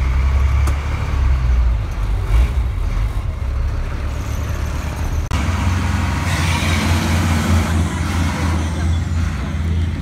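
Cat 3116 inline-six turbo diesel of a 1998 Blue Bird GMC school bus running with a steady low drone: first from inside the cab while driving, then, after a sudden break about five seconds in, from outside as the bus pulls away. A hiss lasting about two seconds comes in just after the break.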